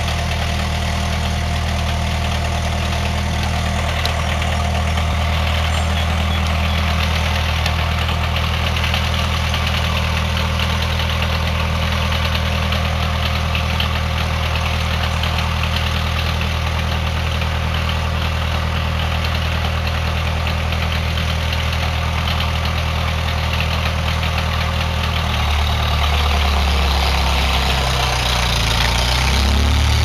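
Skid steer loader's engine running at a steady speed. About 25 seconds in, its note wavers up and down and grows a little louder as the machine is driven and worked.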